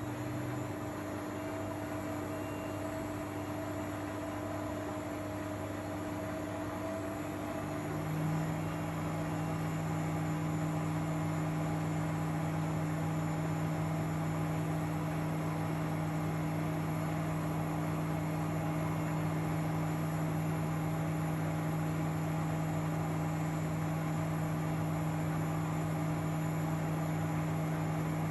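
Miele Professional washing machine on its 1400 rpm spin: the drum and motor run up with a whine rising in pitch over the first eight seconds or so, then hold a steady hum at full spin speed.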